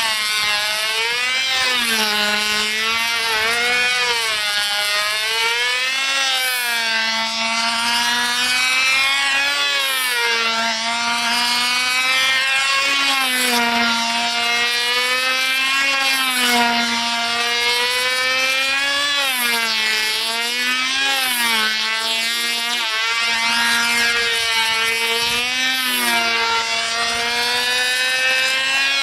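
Fox .36X two-stroke glow engine of a model airplane running at high speed in flight. Its pitch rises and falls every few seconds as the plane flies past and away.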